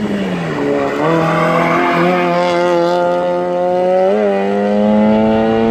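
Hillclimb race car's engine going through a hairpin: the pitch drops as the car slows into the bend about half a second in, then climbs steadily as it accelerates away out of the corner, with a brief jump about four seconds in.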